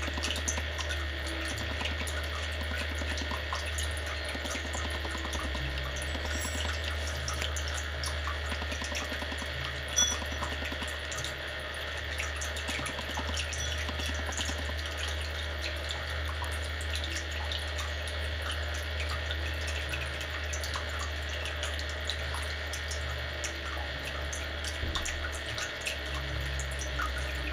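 Steady rushing noise like running water, with a low hum underneath and one brief sharp sound about ten seconds in.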